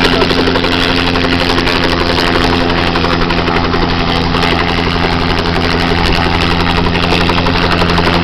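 Helicopter engine and rotor running loud and steady, with a constant low hum and two steady tones, close by.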